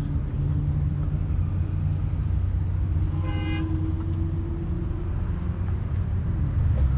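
Steady low rumble of vehicles in a parking lot, with a brief car horn toot about three seconds in.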